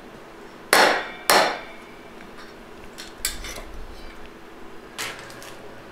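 Hammer driving a new bushing into a 4L60E transmission's reverse input drum, striking the old bushing used as a driver: two sharp metallic blows about half a second apart, then a few fainter knocks.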